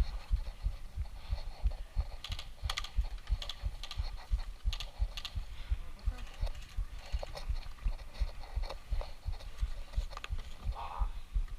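Rhythmic low thuds, about three a second, like footsteps and gear jolting on a body-worn camera as the player moves, with scattered sharp clicks and rattles over them.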